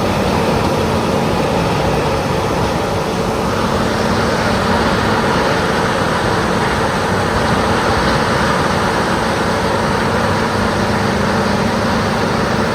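Peterson 5710E horizontal wood grinder running steadily, a loud, even machine noise with a low hum under a dense grinding roar. The noise fills out a little about three seconds in.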